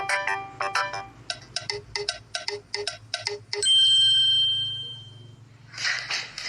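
Background music: a quick run of short tuneful notes, then a single bell-like ding that rings out and fades over about a second and a half. A brief burst of noise follows near the end.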